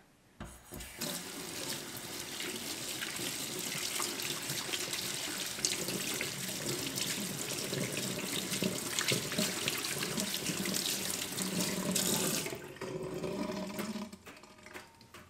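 Kitchen mixer tap running into a stainless steel sink, the stream splashing as soapy hands are rinsed under it. The flow stops near the end.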